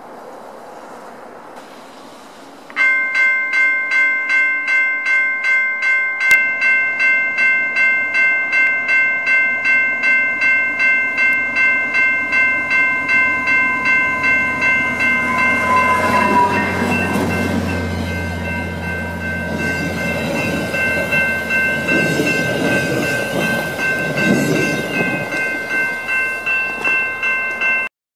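Level-crossing warning bell ringing in quick even strokes, about one and a half a second, starting about three seconds in. Over it, a VIA Rail passenger train's diesel locomotive and wheels on the rails rumble past in the second half.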